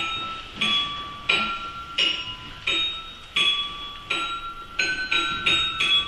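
Glockenspiel played one note at a time in a slow ringing melody, a struck metal note about every two-thirds of a second, the notes coming quicker near the end.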